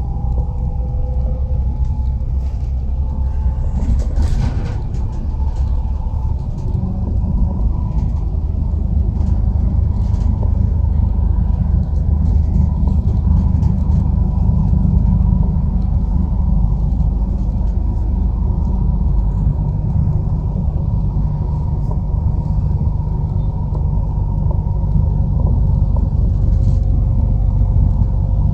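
Vehicle in motion: a steady low rumble with a faint steady whine above it and a brief rattle about four seconds in.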